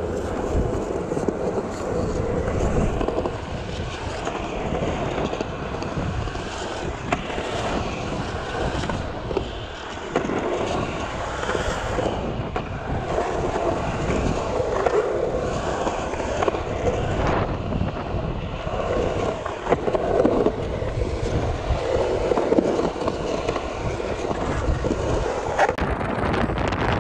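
Skateboard wheels rolling over concrete, a steady rumble that swells and fades, with a few sharp clacks of the board.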